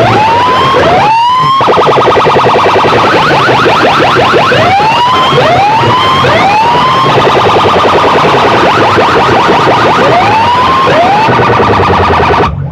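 DJ competition siren effect blasting through a large sound-system speaker rig: repeated rising whoops over a fast stuttering pulse and a low beat, very loud. It cuts off abruptly near the end.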